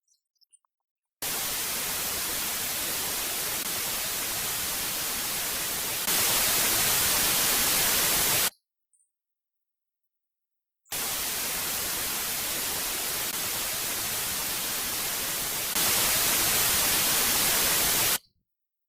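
White noise test signal for a speaker check, played as two hissing bursts of about seven seconds each, with a silent gap of about two seconds between them. Each burst steps up louder about five seconds after it starts.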